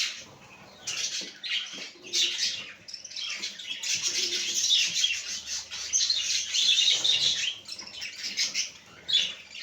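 Small pet parrots, lovebirds and rainbow budgerigars, chirping and chattering together in dense, overlapping calls.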